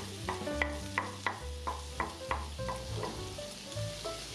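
Shrimp and garlic sizzling in a nonstick frying pan as they are stirred with a wooden spatula, under background music.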